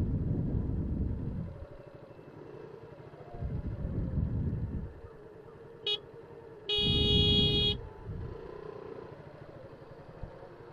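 A vehicle horn gives a short toot and, about a second later, a longer honk lasting about a second, in slow mixed traffic. Under it a motorcycle runs at low speed, with low rumbles that come and go.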